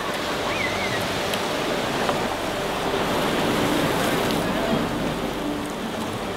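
Ocean surf washing against a lava-rock shoreline, a steady rush of noise with no break.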